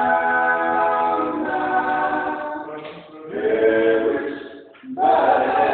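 A cappella vocal group singing in close harmony, holding long chords, with two brief breaks between phrases.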